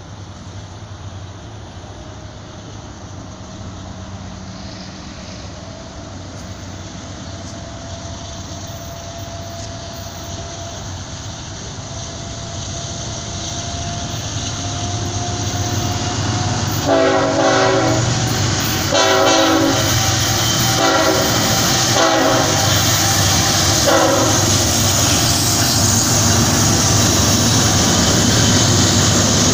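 BNSF ET44C4 diesel-electric locomotive with a GE V12 engine, leading a grain train, approaching and growing steadily louder until it passes close by near the end. About halfway through, its horn sounds a series of blasts: two long, then a few shorter ones.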